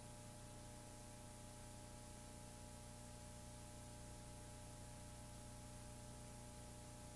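Near silence: a faint, steady hiss with a low hum underneath.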